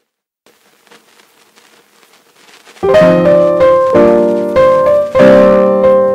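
Background piano music: faint for the first few seconds, then chords come in about three seconds in, struck roughly once a second and left to ring.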